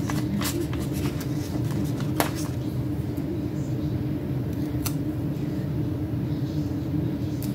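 Light clicks and paper rustles as planner stickers are peeled from their backing sheet and pressed down with tweezers. The clearest clicks come about two seconds in and near five seconds. Under them runs a steady low hum, like a room fan.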